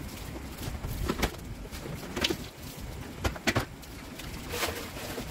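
Knocks and clatter from a large plastic cooler being opened and handled, with a hose moved about beside it. There are several sharp knocks a second or so apart.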